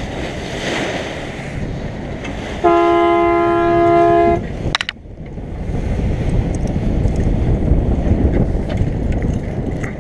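A boat's horn gives one steady blast of under two seconds, a few seconds in. Wind buffets the microphone and the boat rushes through the water throughout.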